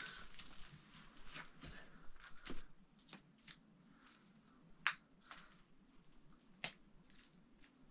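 Hands pressing and smoothing wet mud plaster over a mud stove: soft wet pats with scattered sharp clicks, the loudest about five seconds in.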